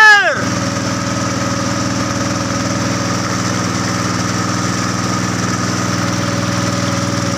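Boat engine running at a steady, even speed, a low drone. A shouted word trails off with a falling pitch at the very start.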